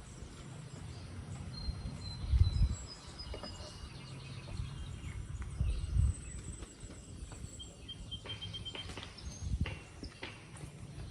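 Outdoor background with thin high-pitched chirps, and a few low thumps about two and a half, six and ten seconds in, with some faint clicks near the end.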